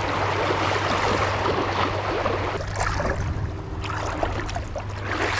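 Stream water rushing close to the microphone, dense at first and thinning after about two and a half seconds.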